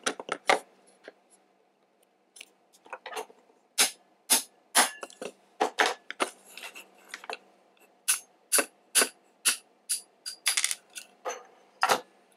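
Small hammer tapping a pin punch to drive a pin out of an airsoft Glock's frame: a string of sharp metallic taps at uneven spacing, one to three a second, with short pauses between runs.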